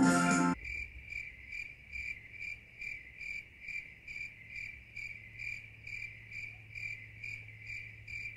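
Crickets chirping in an even rhythm, a bit under three chirps a second, over a faint low hum. It comes right after a few notes of organ music, which stop about half a second in. It is the stock crickets effect that marks a silence with no answer.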